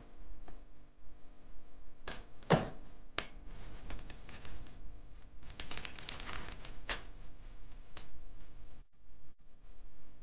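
Handling sounds at a desk: a heavy thump about two and a half seconds in among lighter knocks and clicks, then paper rustling as a notebook is picked up and opened.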